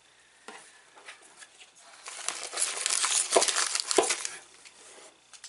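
Plastic snack wrappers crinkling as hands rummage through a cardboard snack box, starting about two seconds in, with two sharp knocks a little past the middle.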